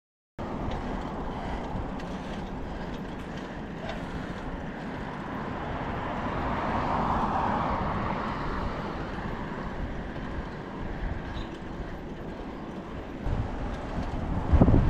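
Wind rushing over the microphone of a camera riding on a moving bicycle, mixed with the rumble of the bike rolling along a paved trail. The wind buffets louder near the end.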